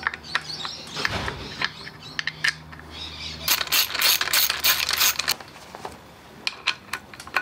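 Hand tools on metal while the hydraulic timing belt tensioner is bolted onto a Toyota 1KZ diesel: scattered metallic clinks, then a fast run of ratchet clicks from about three and a half to five seconds in as the bolts are run down. A faint low hum sits underneath until about five seconds in.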